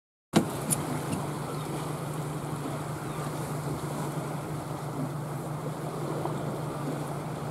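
A fishing boat's outboard motor running steadily at low speed, with water and wind noise over it. The sound starts suddenly a moment in.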